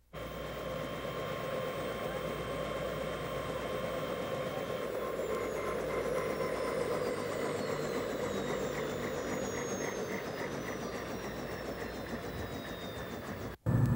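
Helicopter running: steady engine and rotor noise with a hum, and thin high whines that slowly fall in pitch through the middle. It starts abruptly and cuts off near the end.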